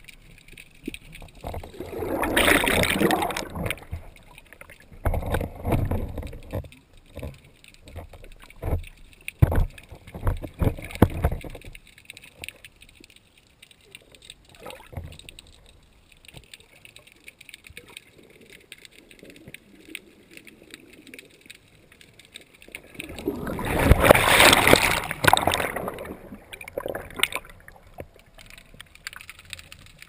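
Shallow-water surge over a rocky reef heard underwater: two loud swells of rushing, gurgling water, one about two seconds in and one near the end. Between them comes a run of knocks and thumps, then a fainter wash.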